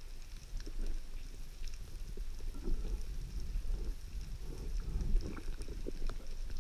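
Muffled low rumble of moving water with faint scattered crackling clicks, the sound of underwater footage recorded by a camera in a waterproof housing.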